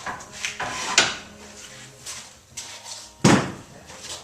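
Metal clunks and knocks as parts of a Wilmont belt grinder are handled and moved to set it up for vertical grinding: a few separate knocks in the first second and a single loudest clunk about three seconds in.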